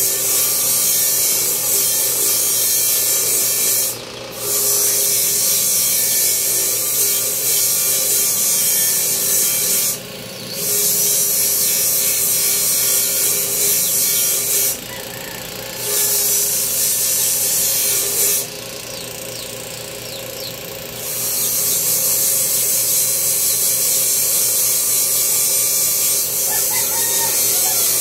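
A power tool abrading a workpiece with a steady hissing grind. The grinding breaks off briefly four times: for a moment about 4 and 10 seconds in, for about a second around 15 seconds, and for a couple of seconds near 19 seconds.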